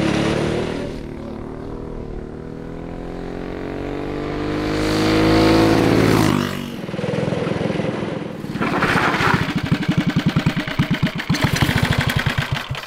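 Predator Ghost 212cc single-cylinder four-stroke kart engine. A kart comes past at speed, its engine note rising as it approaches and dropping sharply as it goes by about six seconds in. In the second half the engine slows to an even, pulsing idle as the kart rolls to a stop.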